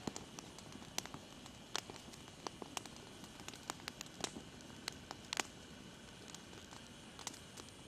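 Wood campfire crackling, with irregular sharp pops and snaps throughout and one louder pop about halfway through, throwing up sparks.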